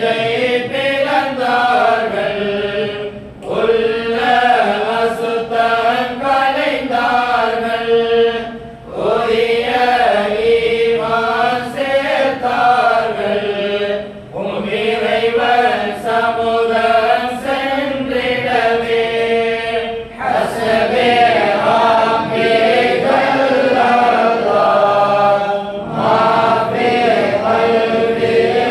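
A group of men chanting Islamic devotional verses together in unison, in long phrases of about five to six seconds, each ending in a brief dip before the next begins.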